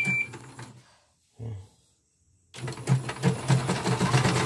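A short electronic beep, then after a silence a portable CNY embroidery machine starts stitching about two and a half seconds in: a fast, steady clatter of the needle mechanism.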